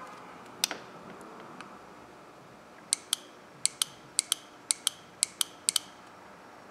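MAP/BARO switch solenoid from a 1999 Nissan Maxima clicking as a power probe switches power to it on and off: one click, then from about three seconds in a run of sharp clicks in pairs, about two pairs a second. This is the clicking of a normal, good solenoid.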